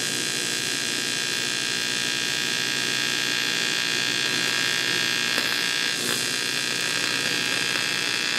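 Steady electric buzz and hiss of an AC TIG welding arc on aluminium, holding an even level throughout.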